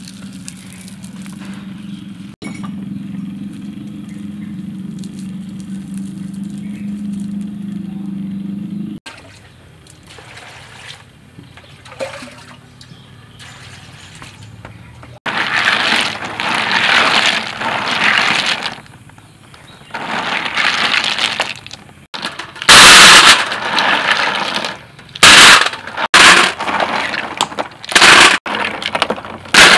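Snails being washed in a basin of water, a loud splashing rush, followed by snail shells clattering against each other and onto a metal tray in a series of sharp, very loud bursts. A steady low hum at first stops about nine seconds in.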